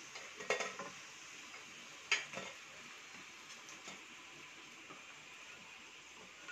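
Hot oil sizzling faintly in a kadai as fried raw banana slices are lifted out with a wooden spatula, with a few short knocks and scrapes of the spatula on the pan and plate about half a second in and at about two seconds.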